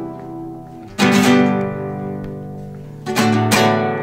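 Acoustic guitar strumming slow chords, an introduction with no voice yet: one strum about a second in that is left to ring, then two quick strums near the end.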